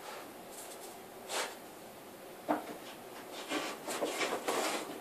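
A Record 050 combination plane scraping along a pine board in short strokes: a single swish about a second in, then a quick run of strokes near the end.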